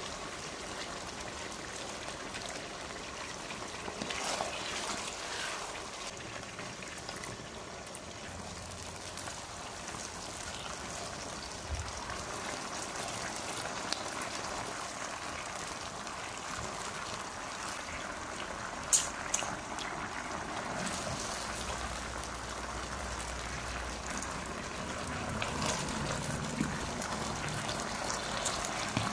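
Sauce sizzling and bubbling in a hot wok as it is stirred with a spatula, with a few sharp scrapes and knocks of the spatula, the loudest one a little past halfway.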